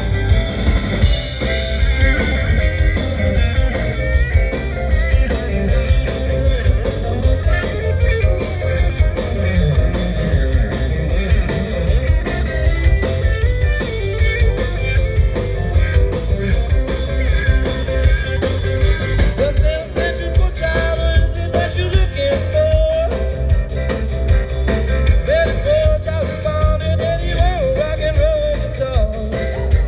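Live band playing a rock song: electric guitar over bass and drums, with a lead line that bends in pitch through the second half.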